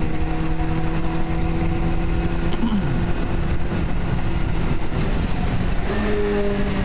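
Suzuki Gixxer motorcycle engine running steadily under way, with low wind rumble; the engine note steps up in pitch about six seconds in as the bike picks up revs.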